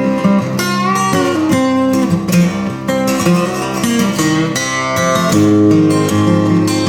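Instrumental break of a song played on guitars, with strummed and plucked acoustic guitar.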